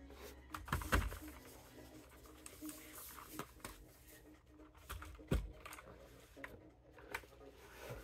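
Cardboard box and packaging being handled, a rustling and scraping broken by a few sharp knocks. The loudest knock comes about a second in and another just past five seconds, as the keyboard comes out of its box.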